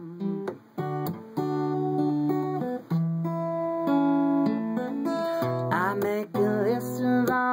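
Acoustic guitar strumming chords in an instrumental break between sung lines, with sharp strokes and abrupt muted stops between chords. A short wordless vocal line comes in near the end.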